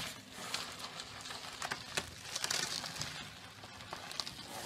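Green bubble wrap crinkling and rustling with irregular small clicks as a cat wriggles and kicks inside a tube of it.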